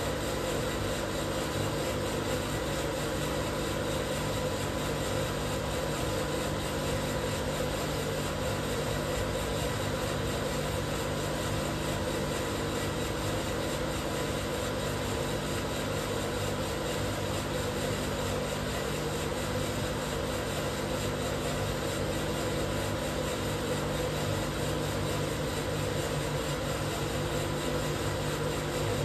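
Probat Probatone P12 Series 2 12 kg drum roaster running partway through a roast: a steady machine noise from the drum drive, fan and burner, with a constant hum.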